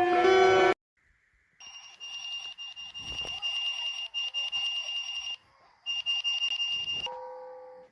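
High-pitched electronic emergency alert tone, sounding for about four seconds, breaking off briefly, then sounding again for about a second. Before it, a chime tune cuts off just under a second in, and a lower ringing tone begins near the end.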